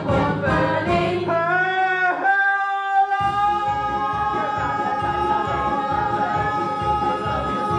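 A small group of performers singing a musical-theatre number with accompaniment. A little over two seconds in, the low accompaniment drops out for about a second, then the voices hold one long note to the end.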